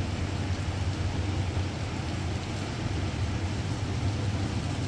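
Heavy rain falling steadily as an even hiss, with a steady low rumble underneath.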